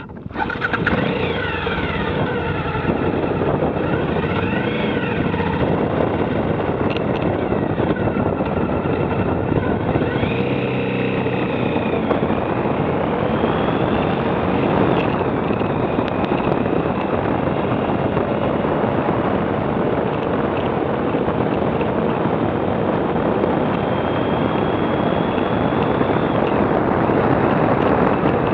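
Motorcycle engine opening up about half a second in, its revs rising and dropping through several gear changes over the first dozen seconds, then running steadily at cruising speed.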